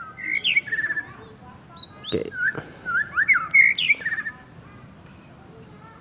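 Songbird, the white-rumped shama (murai batu), calling: a quick run of short chirps and whistled notes sliding up and down, stopping after about four seconds.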